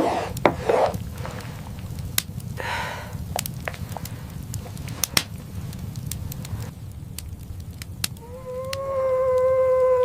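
Scattered sharp clicks and crackles over a low rumble. Near the end a long, steady wolf howl begins and holds for a few seconds before its pitch starts to fall.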